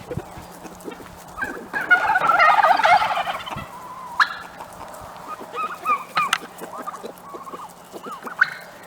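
Domestic turkey gobbling: one loud, rapid rattling gobble lasting about two seconds, followed by scattered short fowl calls.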